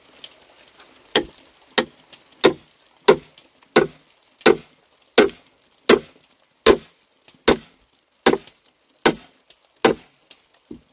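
Axe chopping into a wooden log: about thirteen steady, sharp blows, a little more than one a second, starting about a second in.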